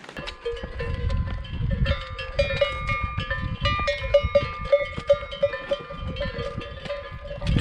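A cow's neck bell clanking as the cow grazes, struck again and again a few times a second with a ringing metallic tone, over a low rumble.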